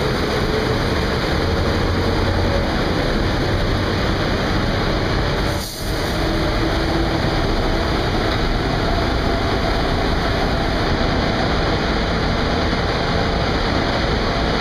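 Automatic car wash running: a loud, steady rushing noise of spray and machinery in the wash bay, with one brief dip about halfway through.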